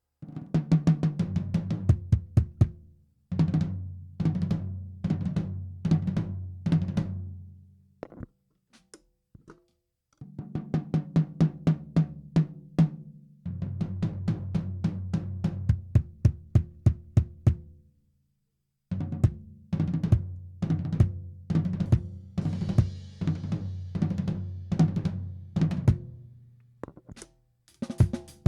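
Restored Made-in-Japan Black Jack drum kit being played in a sound test: fast runs of strokes across the drums, the ringing pitch stepping down from higher to lower drums, mixed with crisp snare hits from a Gretsch Brooklyn chrome-over-steel snare. The playing comes in three phrases with short pauses between them, and a cymbal wash joins partway through the last phrase.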